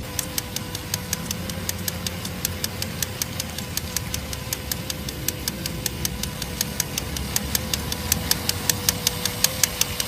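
Toy train made from drink cans, driven by a small DC motor, rolling along on can-lid wheels. There is a faint steady motor whine over a low rolling rumble, and a sharp click about five times a second that grows louder toward the end.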